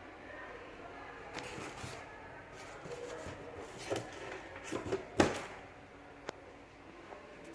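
A series of knocks and clicks over a faint steady hiss, the loudest knock about five seconds in and a sharp single click a second later.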